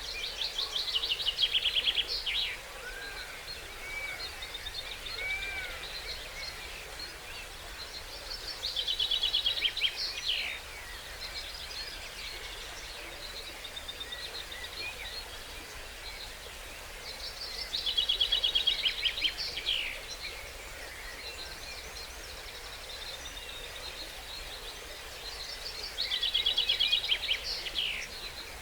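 A songbird singing the same loud phrase four times, about every eight or nine seconds: a quick run of repeated notes that drops in pitch and ends in a flourish. Another bird calls faintly between the phrases, over a steady outdoor hiss from the stream.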